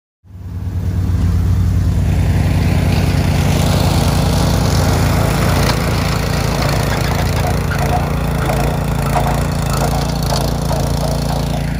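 Engines of a utility vehicle and a tow-behind rough-cut mower running steadily at work, the mower's blades chopping through grass and weeds with a dense crackle and snapping of brush. The sound cuts in abruptly just after the start.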